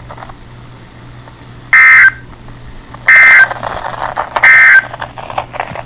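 Emergency Alert System end-of-message data tones: three short, harsh digital screeches about 1.4 seconds apart. This is the SAME "NNNN" burst that marks the end of the warning message.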